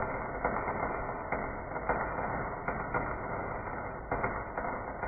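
Arc welding on steel: a steady crackle and sizzle with sharper pops every half second or so.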